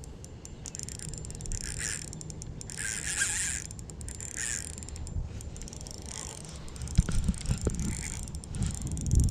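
Fishing reel being cranked in short whirring spells, over a steady low rumble, with a few knocks about seven seconds in.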